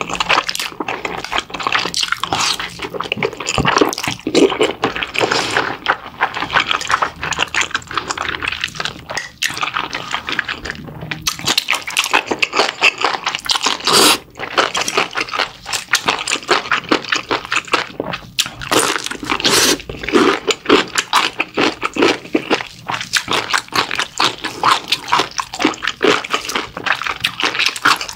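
Close-miked, wet chewing and lip-smacking from eating mala-sauced pig's trotters: a dense, steady run of sticky smacks and clicks.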